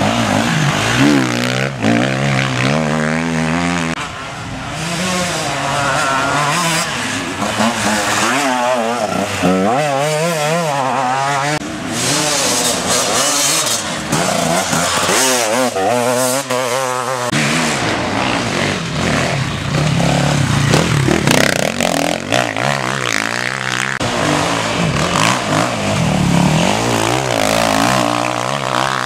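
Enduro motorcycle engines revving hard as several bikes ride past one after another on a dirt track. The pitch keeps rising and falling with the throttle and gear changes.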